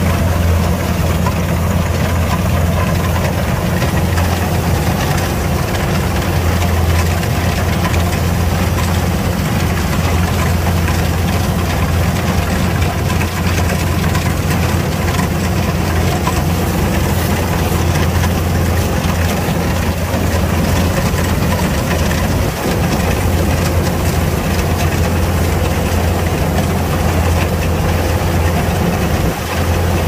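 Kubota DC105X combine harvester running steadily: a loud, unchanging deep diesel drone under a wash of mechanical noise from the working machine.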